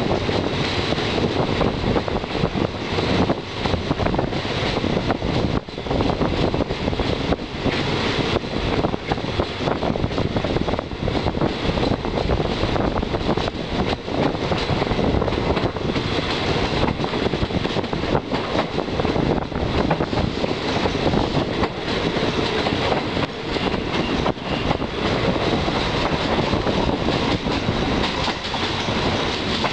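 Passenger train running along the line, its wheels clattering steadily over the rails, heard from a carriage window.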